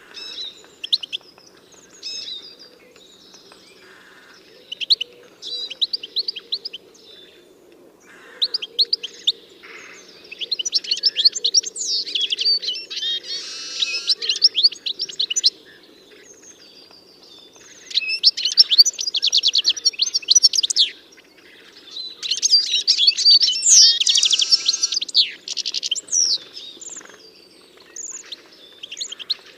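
Small songbirds chirping and singing, several overlapping, in bursts of rapid trills and quick chirps with quieter gaps between, over a faint steady low hum.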